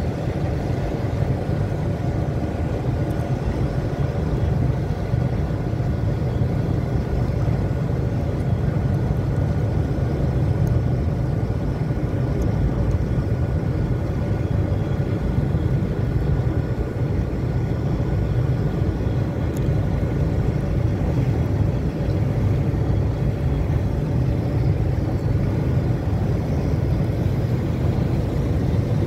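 Steady low rumble of ship engines, with a faint steady whine above it.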